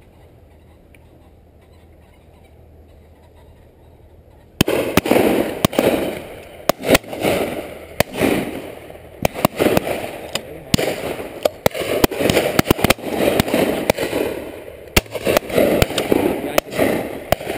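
Shotguns firing at driven pheasants: many shots in quick, irregular succession, some close and loud, beginning suddenly about four and a half seconds in, with a rushing noise between them.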